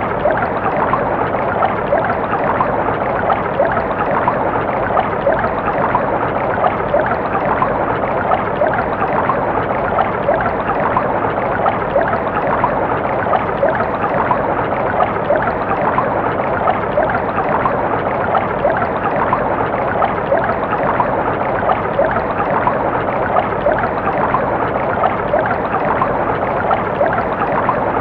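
Water flowing steadily, a continuous dense rush with fine, irregular splashy detail.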